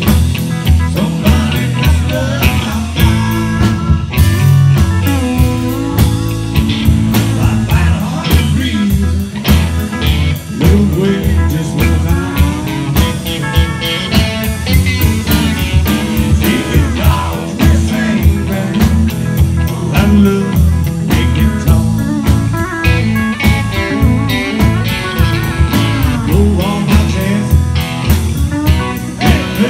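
Live blues-rock band playing: electric guitar, bass guitar and drum kit with a steady beat.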